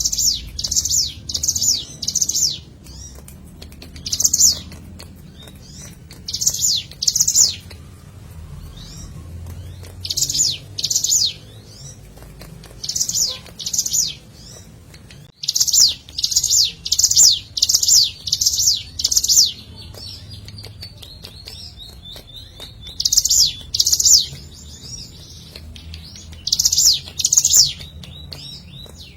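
Ciblek gunung, a prinia, calling: loud, high-pitched notes in quick runs of two to six, repeated every second or two with short pauses, and softer chips between. This is a lure song meant to set captive birds singing.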